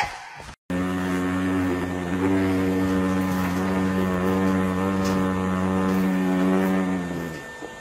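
A steady, low, pitched hum starts about a second in, holds for about six seconds and fades out near the end.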